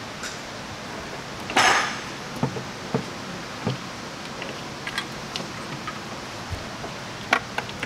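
Scattered clinks and knocks of an MSD intake manifold and hand tools being handled as the manifold is set onto the engine, with one louder, longer clatter about one and a half seconds in.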